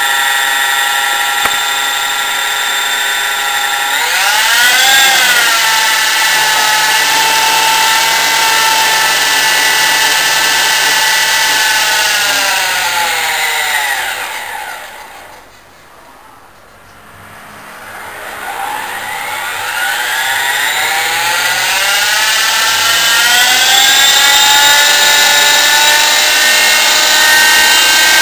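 Electric RC helicopter's motor and gear train whining as the rotors spin. The pitch steps up about four seconds in and holds, then winds down to a low ebb about halfway through, and spools back up to a steady high whine.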